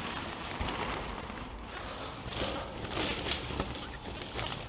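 Nylon tent fabric rustling and crinkling as it is pulled and adjusted over a small dome tent, swelling a few times, with several short knocks and clicks from handling.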